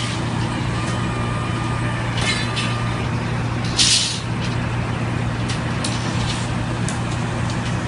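A steady low machine drone runs throughout. Over it come two short bursts of hissing air, one about two seconds in and a louder one near the middle, then a few faint clicks.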